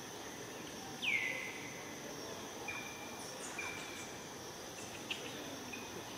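Steady high drone of insects. About a second in, one loud call slides down in pitch and holds briefly, followed by a few short, high chirps spaced a second or so apart.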